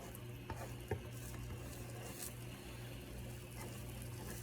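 Egg omelet frying in a buttered pan with a faint, steady sizzle, a couple of light ticks about a second in, and a low steady hum underneath.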